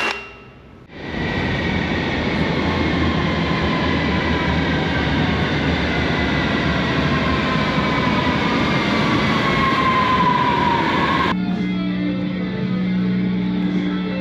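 A passing city train, loud and rushing, with a whine that slowly falls in pitch as it slows; it cuts off abruptly about eleven seconds in. After that comes music holding steady low notes, a guitar.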